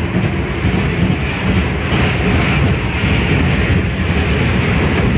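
Small dragon-train roller coaster running along its track, heard from on board: a steady, loud rumble of the cars and wheels on the rails.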